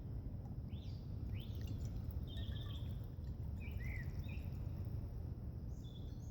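Several short bird chirps over a steady low outdoor rumble.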